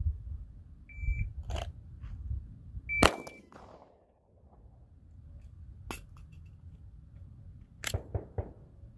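Shot timer beeps to start, and two seconds later its par-time beep sounds together with a single handgun shot, the loudest sound. Quieter sharp clicks follow, one and then three close together near the end.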